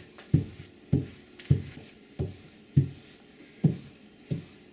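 A regular series of dull, low thumps, about one every two-thirds of a second.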